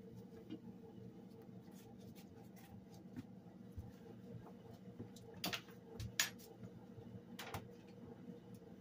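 A few faint knocks and clicks, about three in the later half, as household things are handled and set down, over a steady low hum.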